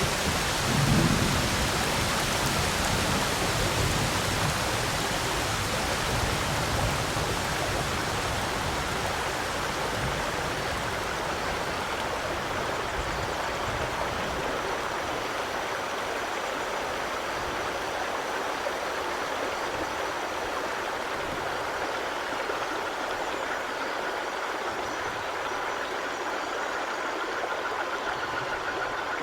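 Steady rain, an even hiss with no breaks, with a low rumble swelling about a second in and the low end fading away over the following seconds.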